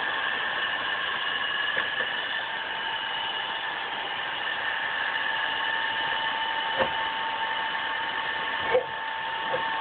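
Vertical milling machine cutting metal with an end mill: a steady whine of several held tones over a rushing noise, with a few brief clicks about seven seconds in and near the end.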